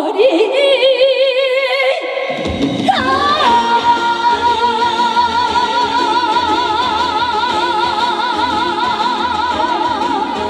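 Female trot singer's voice singing live with band accompaniment: a short held note with vibrato, then from about three seconds in one long high note with wide, even vibrato that is held to the end.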